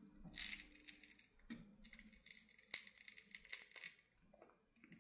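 Faint, scattered clicks and crackles as a glued e-paper display is pried away from a phone case's back with metal tweezers. The creaking is the kind that the owner takes as a sign the display's glass is breaking.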